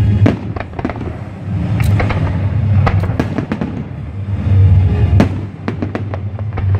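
Aerial fireworks display: shells bursting in a rapid string of sharp cracks and bangs, over music playing.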